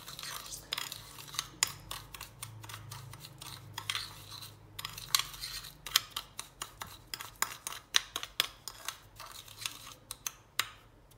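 Metal spoon stirring a gritty paste of ground coffee, sugar and oil on a ceramic plate: irregular scraping, with sharp clinks of metal on china several times a second.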